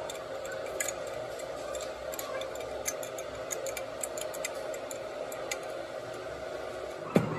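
Scattered light metallic clicks of a hand tool working the housing bolts of a Holset HX40W turbocharger, over a steady workshop hum. A louder knock comes near the end.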